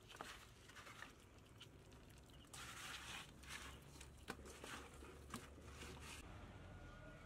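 Faint wet rubbing of a hand working chili paste into whole fish in an aluminium basin, with a few small clicks.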